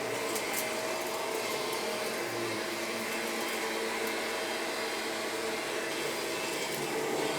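Fan-forward upright vacuum cleaner running steadily as it is worked over carpet, a constant motor whine over the rush of air.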